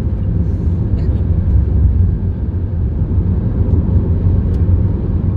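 A car driving: a steady low rumble of road and engine noise.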